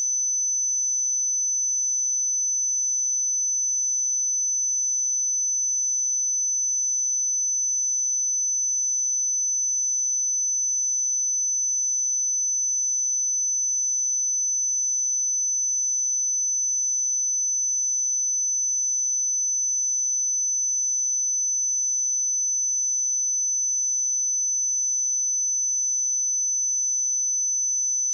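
A pure 6043 Hz sine-wave test tone: one steady, high-pitched whistle at constant level, used to check speakers and headphones.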